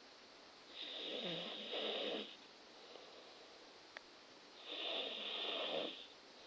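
A person snoring in sleep: two long snores about four seconds apart, each lasting about a second and a half.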